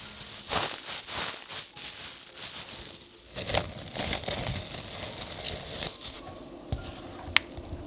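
A plastic bag crinkling and rustling as it is folded around a piece of sponge cake, then plastic cling wrap rustling as it is peeled off a glass bowl. The handling goes quieter later, with one sharp click near the end.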